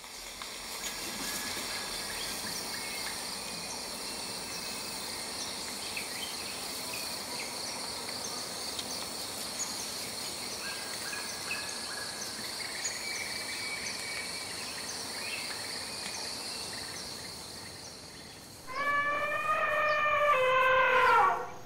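Tropical forest ambience: a steady high insect drone with scattered bird chirps. Near the end, a loud elephant trumpet lasting about two and a half seconds, falling in pitch as it ends.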